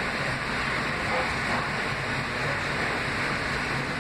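Steady interior noise of an R160A subway car with Alstom propulsion riding on the line: an even rumble and rush of wheels and car body, without breaks.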